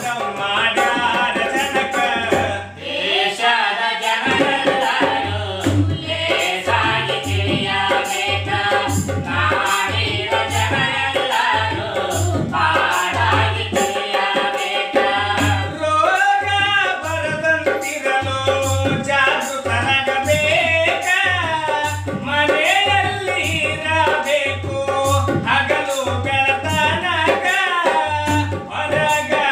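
Men singing a song, accompanied by a two-headed barrel drum played with the hands in a steady, repeating beat.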